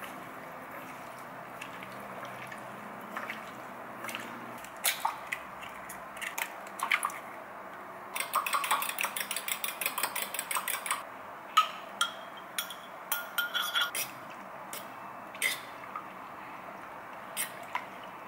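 Chopsticks beating eggs in a glass bowl: a run of fast, even clicking against the glass for about three seconds midway, with scattered single clicks before it and a few ringing clinks on the bowl after it.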